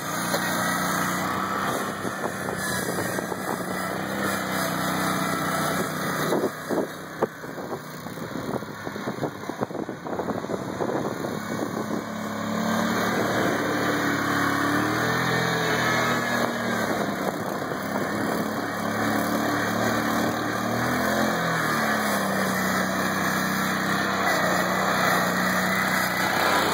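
Skid-steer go-kart's engine running while driven, its pitch steady at first, then rising and falling from about halfway through as it speeds up and slows. A couple of sharp knocks about seven seconds in.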